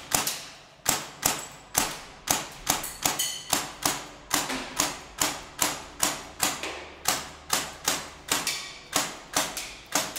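HPA-powered G&P M4 airsoft rifle firing single shots, sharp pops at an uneven pace of about two to three a second, each dying away quickly.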